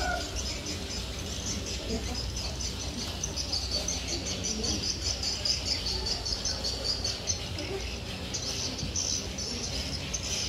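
Rapid, high-pitched animal chirping in the background, stopping briefly about three-quarters of the way through and then starting again, over a low steady hum.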